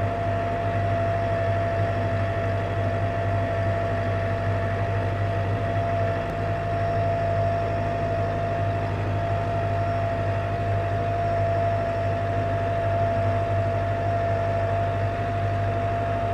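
Tractor engine running steadily under load as it works across a field, a low drone with a steady high whine over it.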